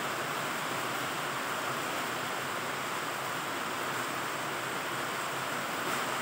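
Heavy rain pouring down in a steady, even hiss, with no thunder.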